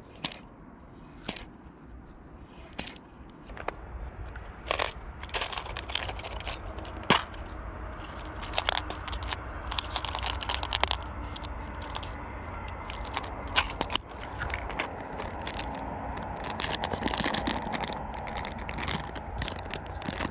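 Irregular clicks and handling noise of hands working fishing tackle right at the microphone while retying a line: picking through a small clear-green plastic jig box and fiddling with the line, busier from about eight seconds in, over a low steady rumble.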